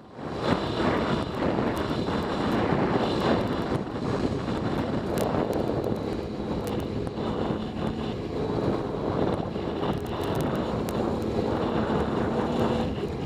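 Suzuki V-Strom V-twin motorcycle engine running steadily while riding off-road, under heavy wind noise on the microphone, with scattered sharp ticks over the top.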